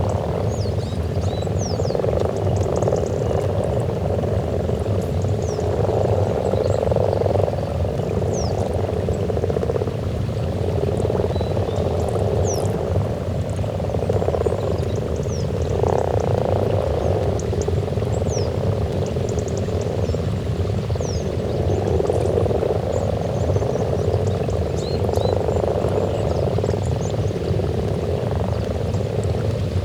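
A chorus of common frogs croaking at their spawning pond: a dense, unbroken mass of low croaks from many males that swells and eases every few seconds. Faint short high chirps sound here and there above it.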